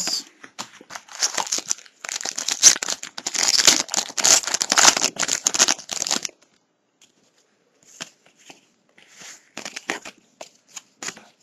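Trading-card pack wrapper being crinkled and torn for about six seconds, then softer scattered rustling as the cards are handled.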